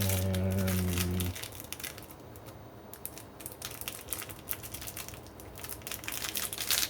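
Plastic crinkling and rustling with small scattered clicks as heat-shrink sleeving is handled and sorted. A steady low hum lasts about the first second and cuts off.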